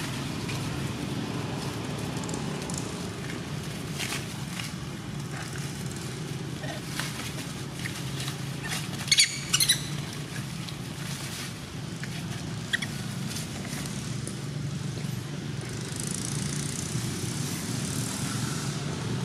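Young long-tailed macaque giving a short burst of high-pitched squeals about nine seconds in while being wrestled in dry leaves, with light rustling and scattered clicks of leaf litter. A steady low hum runs underneath.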